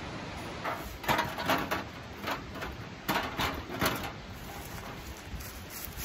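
Footsteps crunching through dry fallen leaves, about two to three steps a second for a few seconds and then stopping, over a steady background hiss.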